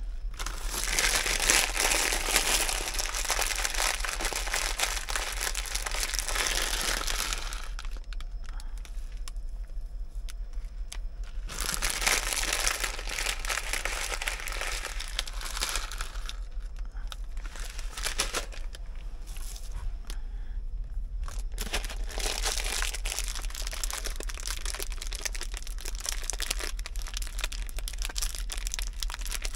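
Crinkling and rustling of plastic packaging being handled, in three stretches of several seconds each with short pauses between, over a steady low hum.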